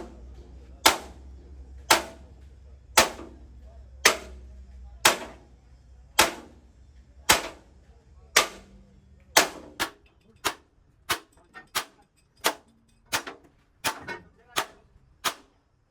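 A hammer striking metal again and again with ringing blows, about one a second, then quicker and less even from about ten seconds in.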